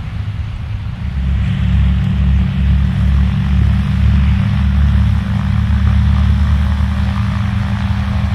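Radial piston engines of Douglas DC-3 aircraft droning steadily, growing louder about a second in.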